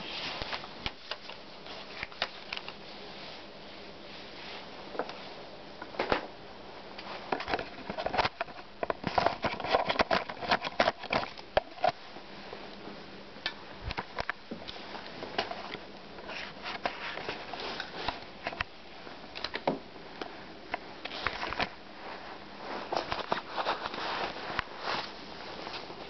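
Handling noise: irregular clicks, knocks and rustling, with a busier stretch of rapid clatter about a third of the way in.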